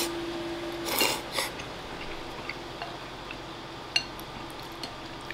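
Udon noodles being slurped from a bowl: a slurp at the start and another about a second in. About four seconds in comes a single sharp click, like chopsticks tapping the ceramic bowl.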